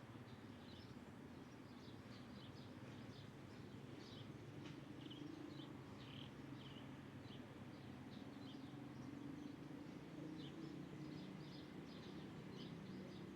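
Small birds chirping: many short, high chirps in quick succession, as from a chattering flock. Underneath is a faint, steady low rumble of background noise.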